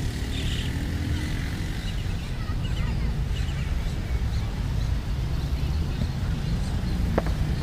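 Wind noise on the phone's microphone, a steady low rumble, with faint distant voices and calls from players on the pitch.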